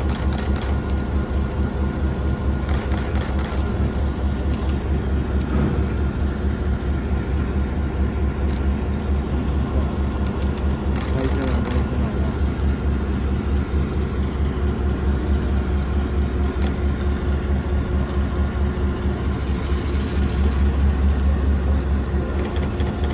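Diesel locomotive engine running steadily with a deep, fast throb and a steady hum above it, a few short clicks about three seconds in and again around ten to twelve seconds.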